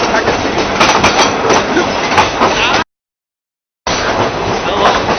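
Train running along the track, a loud rattling rumble of wheels on rails and open-window wind noise. It drops out to complete silence for about a second near the middle, then carries on.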